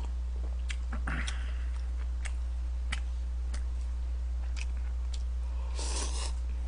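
A man eating instant cup noodles: chewing with scattered small mouth clicks, a short sip about a second in, and a noodle slurp from the cup near the end. A steady low hum runs underneath.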